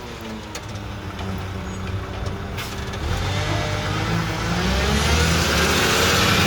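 Mack McNeilus front-loader garbage truck's engine pulling away and accelerating, its pitch rising and the sound growing steadily louder.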